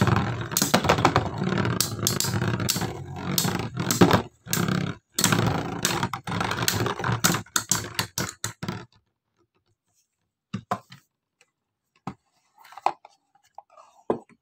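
Two Metal Fight Beyblade spinning tops whirring and scraping across a plastic stadium bowl, with many sharp clicks as they clash. The sound stops abruptly about nine seconds in as the battle ends, and a few light clicks follow.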